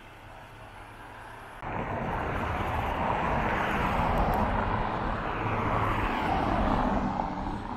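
Road vehicle noise: a steady rushing traffic sound that comes in suddenly about a second and a half in and drops away near the end.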